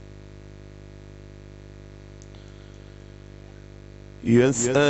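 Steady electrical hum from a sound system between verses. About four seconds in, a man's amplified voice starts loudly, chanting Quran recitation.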